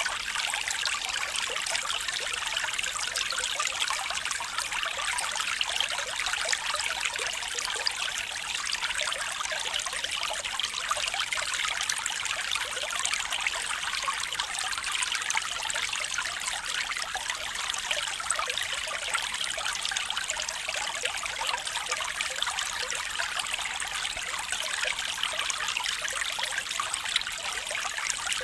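Water trickling and flowing steadily, as in a small stream, with an even splashing hiss.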